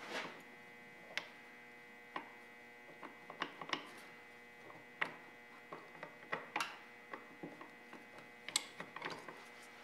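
Irregular metal clicks and clinks as steel gears and shaft parts are worked by hand into a Doall bandsaw's gear transmission case, with a steady hum underneath.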